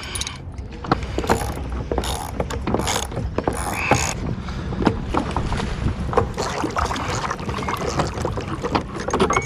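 Metal bracket being bolted onto a plastic dock float: irregular clicks and knocks of the socket wrench and hardware as the bolts are tightened, over a steady low rumble.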